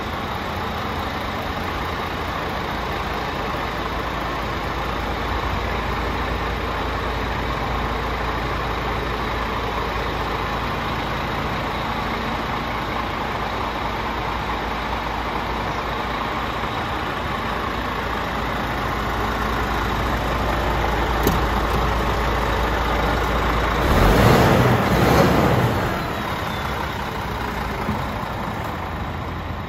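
Scania R450's 13-litre straight-six diesel idling steadily, with a low hum. A louder burst of noise comes about 24 seconds in and lasts a couple of seconds.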